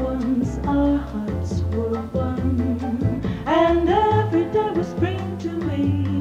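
Jazz-style band music with a walking bass and guitar, and a singer holding long, sliding notes over it in the second half.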